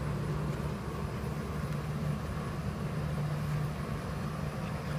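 A steady low machine hum, constant in pitch and level.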